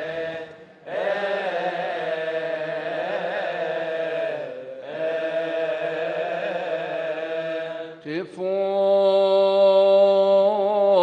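Coptic Orthodox liturgical chant: long, held melismatic notes sung by several male voices in unison, broken twice by short pauses for breath. About eight seconds in, a single male voice close to the microphone takes over, sliding up and holding a wavering note.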